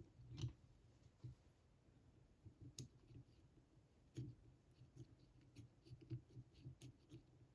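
Faint, irregular clicks of a homemade disk detainer pick with a brass-tube tip working in an Abloy Classic style disk detainer lock.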